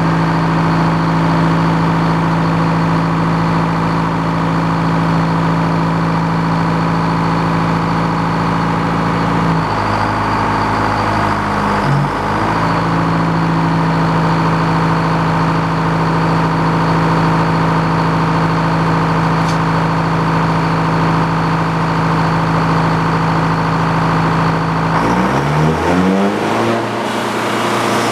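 Engine powering an antique Frick sawmill, running steadily at speed. Its pitch dips and recovers about twelve seconds in, and near the end it drops sharply to a slower, lower speed.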